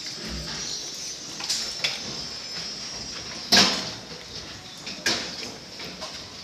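A sow in a steel farrowing crate working at the nipple drinker, with sharp metal clanks from the drinker and crate bars: four knocks, the loudest about three and a half seconds in, ringing briefly. A steady high hiss runs underneath.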